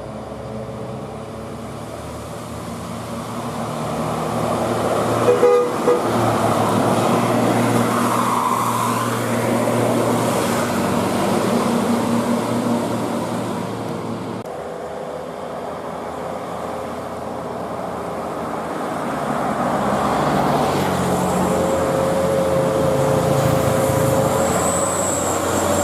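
Bus's roof-mounted telolet musical horn sounding held notes that change in steps, over the bus's engine and traffic noise as it passes, with a short sharp knock about five seconds in.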